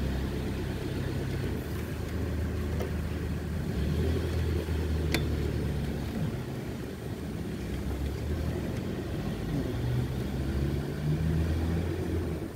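Mitsubishi Electric inverter air conditioner's outdoor unit running with a steady low hum, its compressor stuck at low speed and not ramping up, which the technician gives as the cause of the weak cooling. One sharp click about five seconds in.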